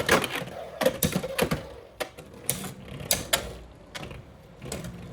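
Beyblade X spinning tops battling in a plastic stadium: a string of sharp clacks as they collide and hit the walls, over the faint whir of the spinning tops.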